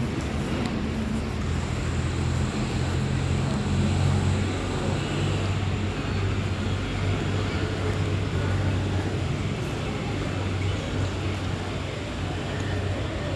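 Steady low hum of a running engine, with background noise.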